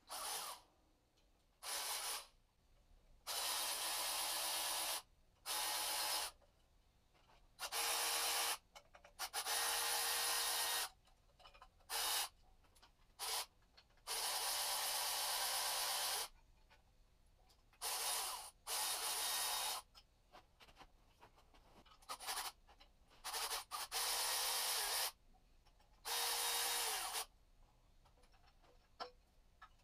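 Repeated short bursts of rasping tool noise, each lasting up to about two seconds with quiet gaps between, as the bolts of the timing belt tensioner on a Toyota 1UZ-FE V8 are worked loose.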